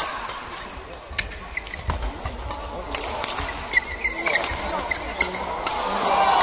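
Badminton rally: sharp cracks of rackets striking the shuttlecock and brief shoe squeaks on the court floor, over the murmur of an arena crowd that grows louder near the end.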